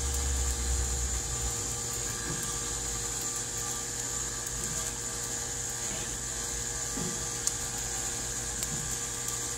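Steady background hum with a faint high hiss and a few faint ticks; no distinct loud event.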